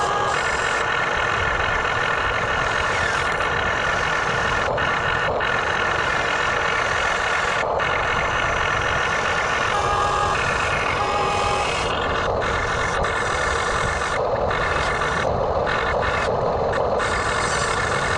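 Remote-control backhoe excavator toy running: a steady, loud mechanical whine and rattle from its motors and gears, with several steady tones that shift in pitch about ten seconds in.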